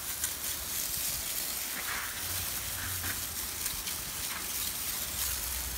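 Garden hose spray hitting a mesh sack of live crawfish, a steady hiss of water rinsing the mud off them.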